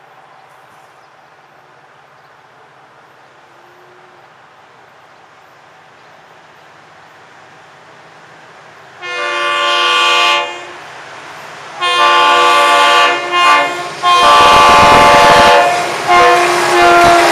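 Diesel freight locomotive's multi-chime air horn sounding a grade-crossing signal of long and short blasts. The horn starts about nine seconds in, after a faint steady background, and the deep rumble of the approaching locomotive grows under the last blasts.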